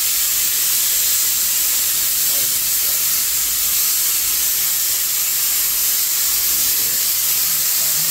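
A loud, steady hiss, strongest in the high range, even and unchanging throughout.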